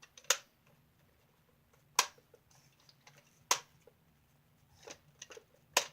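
Nerf Maverick blaster firing foam darts: four sharp snaps, about a second and a half apart.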